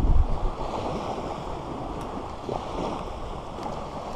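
Small waves washing onto a sandy shore, a steady rushing noise, with some wind buffeting the microphone.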